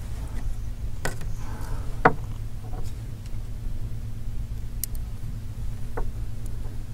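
A few light clicks and taps from a small phone screen assembly and a precision screwdriver being handled while a screw is driven, the sharpest about two seconds in, over a steady low hum.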